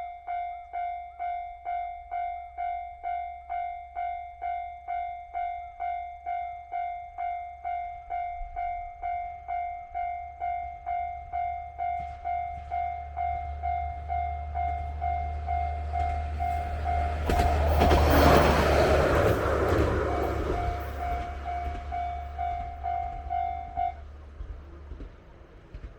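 Japanese level-crossing warning bell ringing its electronic "kan-kan" at about two strikes a second while a single-car Shigaraki Kohgen Railway diesel railcar rumbles past. The train noise swells to its loudest about eighteen seconds in, then fades, and the bell stops a couple of seconds before the end.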